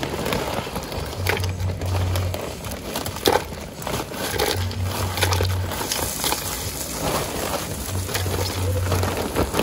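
Plastic bag crinkling and rustling as live crabs are shaken out of it into a steaming pot, with scattered clicks and knocks.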